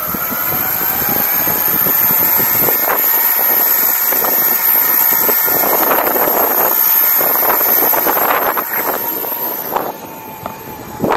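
Electric skateboard's dual 6374 brushless motors whining while under way, the pitch climbing over the first few seconds as the board speeds up, over a rush of wind and road noise from the pneumatic tyres. The sound drops off about ten seconds in.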